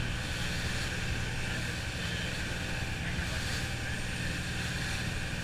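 Motorboat running at speed: a steady engine drone with the rushing water of its wake.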